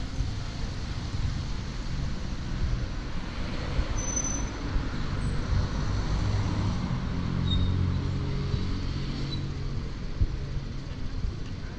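Street traffic: a steady low rumble of road vehicles, with one engine's hum growing louder through the middle and fading near the end.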